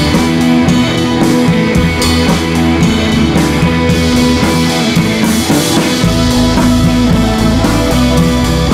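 Background music with guitar and drums; a deeper bass part comes in about six seconds in.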